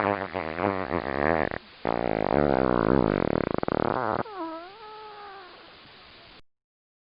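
A cat-like wavering cry sound effect in two loud stretches, the second with a fast flutter. Near the end comes a quieter drawn-out call that dips and then rises in pitch.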